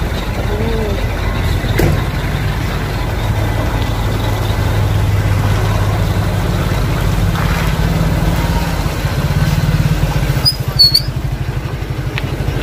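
Motor vehicle engine running close by in road traffic: a low, steady hum that changes pitch a few times. A brief high squeak comes near the end.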